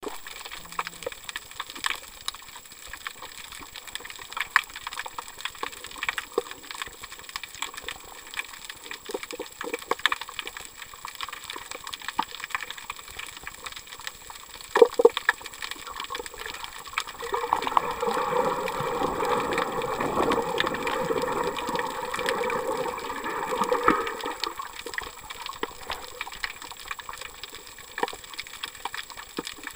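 Underwater sound of the sea picked up by a submerged camera: a constant scatter of sharp clicks and crackles, with a louder rushing noise lasting about seven seconds past the middle.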